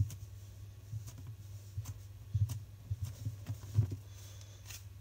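Handling noises: a string of soft taps and clicks, about half a dozen from about a second in until about four seconds, over a steady low hum.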